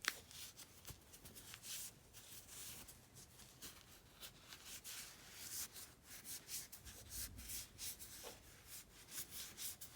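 Rag wiping down a freshly greased Pittsburgh 1/2-inch drive flex-head ratchet: faint, irregular rubbing strokes.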